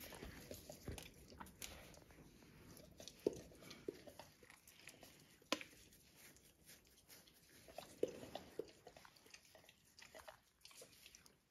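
Faint, scattered small clicks and soft scuffles of a puppy play-biting and mouthing at a tabby cat, with paws moving about on a cork floor.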